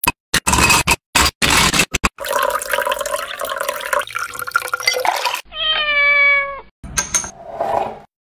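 Ice cubes knocking into a glass, then liquid pouring over them. About five and a half seconds in, a cat meows once: a single long call that falls slightly in pitch.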